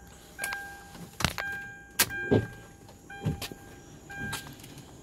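A 2010 Hyundai Sonata's warning chime sounding about once a second, as it does with the driver's door open. Several sharp clicks and a few dull thumps of someone moving into the driver's seat are mixed in.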